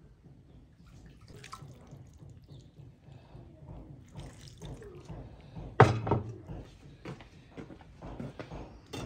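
Water trickling in a thin stream from a clay jug onto cabbage rolls in a pan, dripping and splashing. A single sharp knock about six seconds in.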